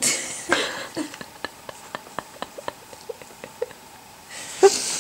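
Puppy licking another dog's face: a run of quick, wet smacking clicks, about three a second, with a breathy rustle at the start and another near the end.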